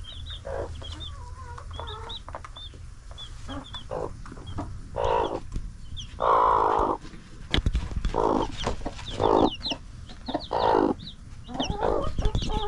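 Newly hatched chicks peeping in many short, high cheeps, while broody mother hens cluck in several louder, lower calls.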